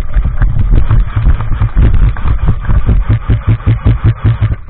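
Rhythmic low thuds, about four a second, with rustle and rumble: footfalls of a player running with the camera on them, each step jolting the microphone.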